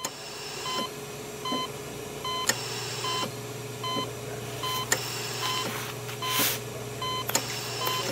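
Short electronic beeps repeating at uneven intervals, roughly once a second, over a steady low electrical hum that strengthens a few seconds in. There are a few faint clicks and a brief hiss near the end.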